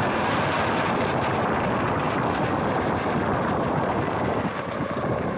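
Electric skateboard rolling fast on asphalt on 127 mm airless 3D-printed TPU wheels: a steady road rumble with wind buffeting the microphone, easing slightly near the end.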